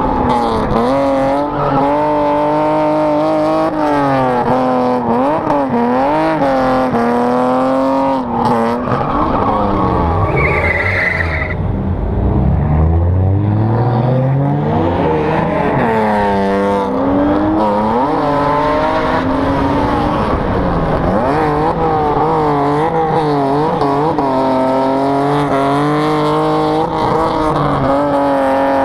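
Drift cars' engines revving hard, their pitch rising and falling constantly as they slide, with tyres squealing and skidding. A brief high squeal comes about ten seconds in, and a low engine note climbs steadily a couple of seconds later.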